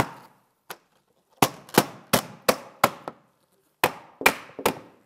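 Plastic-headed hammer tapping a vinyl glazing bead into its frame: a run of five sharp taps about three a second, a short pause, then three more.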